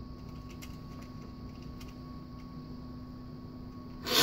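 Steady electrical hum with two faint fixed tones, under a few soft clicks as the 3D-printed plastic extruder assembly is turned in the hands. Right at the end comes one short, loud rushing burst that sweeps quickly down in pitch.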